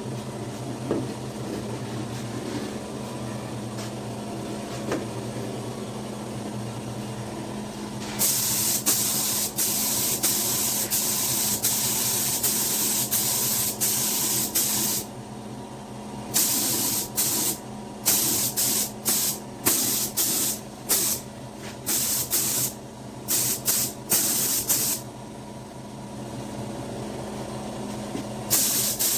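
Paint being sprayed: one long continuous hiss of about seven seconds, then a run of short bursts, over a steady low hum.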